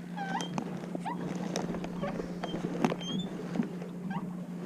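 Birds chirping in short rising and falling calls over a steady low hum, with a few scattered clicks and knocks.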